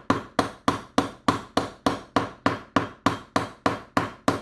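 Hammer striking a glass seasoning grinder jar in a fast, even run of blows, about four a second. The jar and its stuck lid do not give way.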